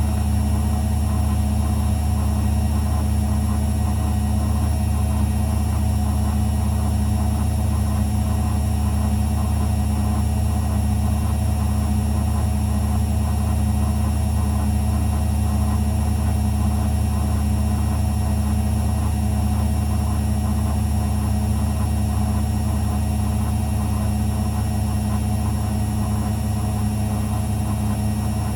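Zanussi FL984CN front-loading washing machine spinning at a steady speed, a constant low motor hum with a faint whine above it.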